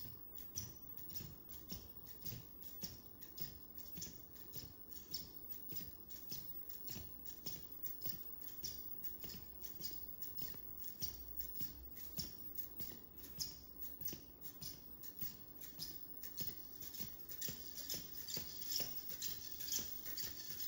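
Small quadruped robot walking on a hard floor: its servos click and its feet tap in a regular gait rhythm of about three to four steps a second, getting louder near the end.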